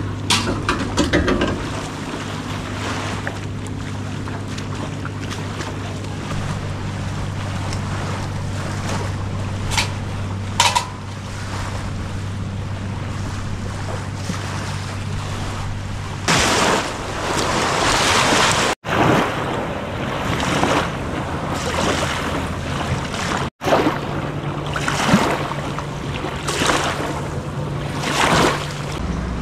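A boat motor hums steadily. About halfway through, the splash and rush of waves and wind on the microphone take over in repeated swells, and the sound cuts out briefly twice.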